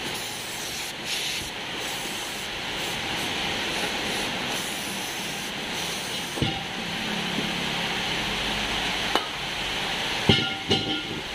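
Aerosol cleaner hissing as it is sprayed from a can onto an engine's timing pulley. There are a few sharp clicks and knocks in the second half, the loudest near the end.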